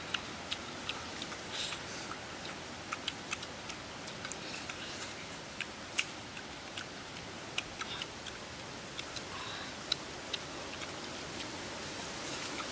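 Scattered small sticky clicks and snaps of ripe jackfruit bulbs being pulled from the opened fruit and chewed, irregular and unevenly spaced, over a steady hiss of outdoor background.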